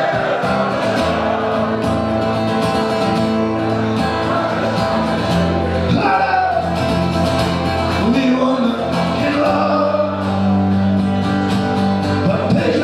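Music: singing over an acoustic guitar, with a country-style feel.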